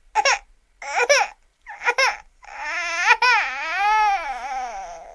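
A baby-like voice crying: three short sobbing cries about a second apart, then a long wail that wavers up and down in pitch and fades away.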